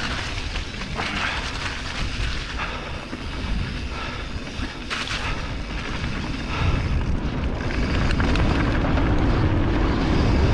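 Mountain bike rolling down a dirt and gravel track, its tyres crunching and the bike rattling over bumps, with wind buffeting the action camera's microphone. The low wind rumble grows louder about two-thirds of the way through.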